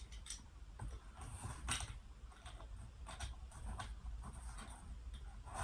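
Scattered rustles and light knocks of a cardboard shipping box being handled and opened.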